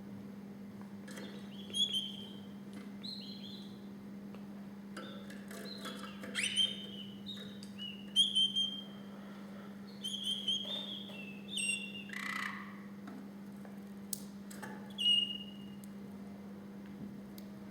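Canary singing in short, scattered chirped and whistled phrases, with pauses between them.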